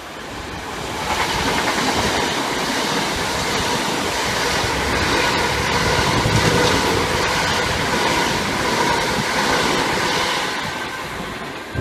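Electric passenger train running past on the track. Its noise builds about a second in, holds steady, and fades near the end.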